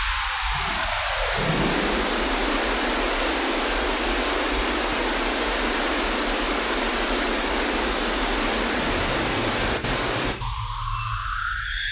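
Ferrofluid synthesiser putting out a dense, steady hiss of electronic noise, with a falling tone that dies away in the first second or so. About ten seconds in the full hiss cuts off sharply and gives way to a thinner, higher hiss.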